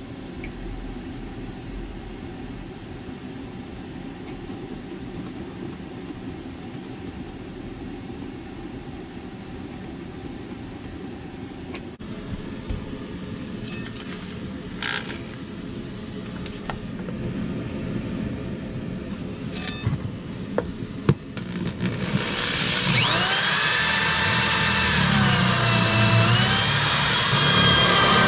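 Corded drill spinning a hole saw as it starts cutting the shower drain hole through the floor; its motor whine comes in loud about three-quarters of the way through and dips and recovers in pitch as the saw bites. Before that, a low steady hum with a few scattered clicks and knocks.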